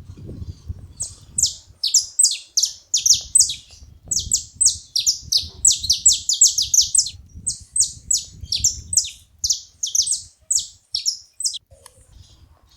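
Saffron finch giving rapid runs of sharp, falling chirps, starting about a second in and stopping shortly before the end, with a brief pause in the middle. A low rumble comes and goes underneath.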